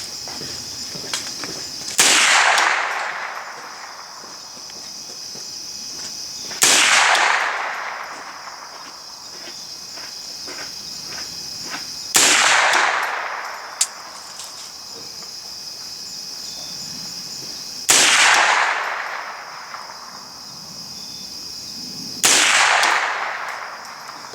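Five rifle shots fired a few seconds apart, each with a long echo trailing off across the range. Insects drone steadily throughout.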